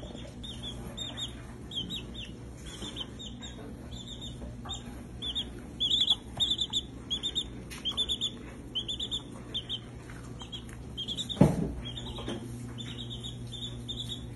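A baby chick peeping over and over, in quick runs of short high chirps. A single sharp thump about eleven and a half seconds in is the loudest sound.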